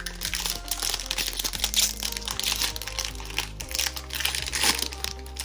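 Plastic trading-card pack wrapper crinkling in the hands as it is handled and opened, over steady background music.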